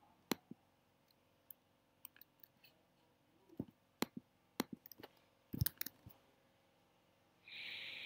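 Scattered, irregular clicks of a computer mouse and keyboard, some in quick runs of two or three. Near the end, a short breathy hiss.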